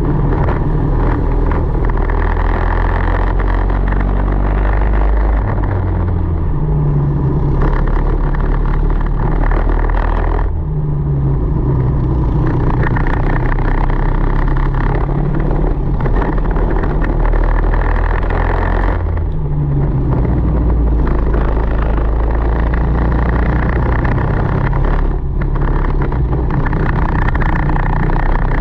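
Tillotson 225 single-cylinder four-stroke kart engine at racing speed, revving up on the straights and falling off three times as the driver lifts for corners.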